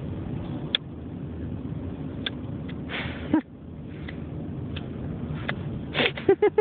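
Steady road rumble inside a moving car. A baby makes a brief sound about three seconds in, then several short, loud babbling noises near the end.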